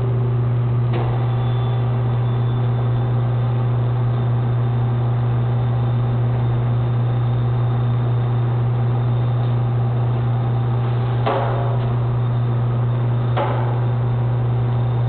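Tube array arrangement machine running with a steady low hum, with a short knock about a second in and two louder knocks near the end.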